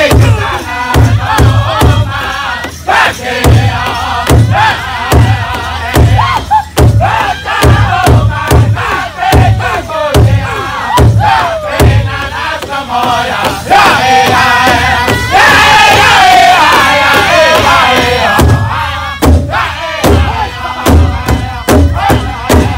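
Powwow drum group singing in unison in high, strained voices, each phrase falling in pitch, over a steady beat of several drumsticks striking one large hide drum together.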